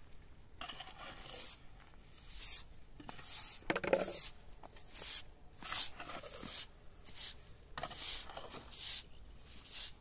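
Repeated scraping strokes in a steady rhythm, a little faster than one a second, with a short louder sound about four seconds in.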